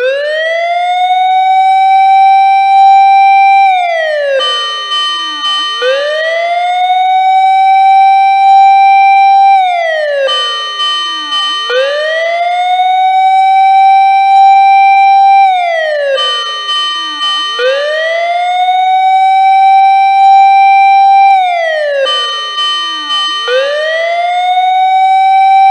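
A siren wailing: its pitch climbs over about two seconds, holds for a few seconds, then falls away, over and over about every six seconds. A fainter, higher tone is layered over it.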